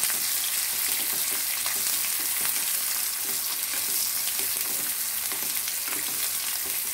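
Sliced onions sizzling steadily in hot oil in a kadai while a spatula stirs them, with scattered light ticks of the spatula against the pan.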